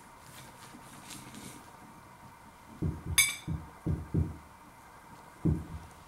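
A metal knife set down on a ceramic plate with a sharp ringing clink about three seconds in, amid soft low thuds of handling on the counter; more soft thuds near the end.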